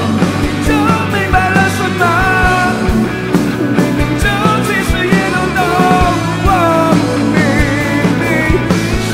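Live rock band playing, with a male lead vocal singing a melody over electric guitars, bass and a steady drum beat.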